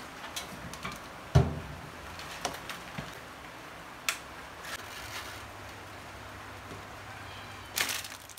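Toaster oven being loaded and switched on: one sharp knock about a second in as the food goes in or the glass door shuts, a few light clicks and taps, and a short rattle of clicks near the end. A faint low hum sets in about halfway through.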